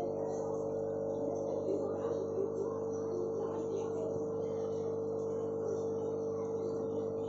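Steady electrical hum of aquarium equipment, with one strong high-pitched tone over a few fainter ones.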